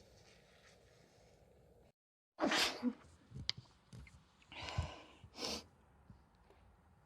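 A person with a cold sneezing loudly once, about two and a half seconds in, followed by two shorter breathy bursts.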